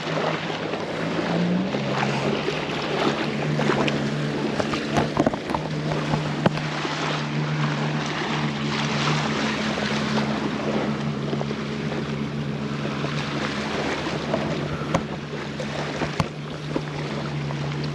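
A boat engine droning steadily, its pitch stepping up about a second and a half in, over lapping surf and wind on the microphone.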